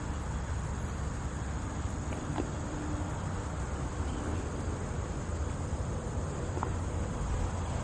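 Steady, high-pitched insect chorus with a low rumble underneath.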